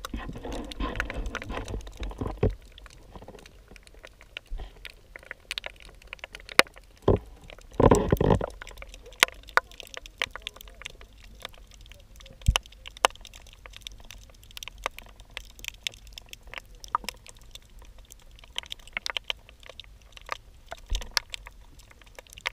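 Underwater sound through a camera's waterproof housing: scattered sharp clicks and knocks throughout, with longer stretches of rushing, knocking handling noise in the first two seconds and again about eight seconds in.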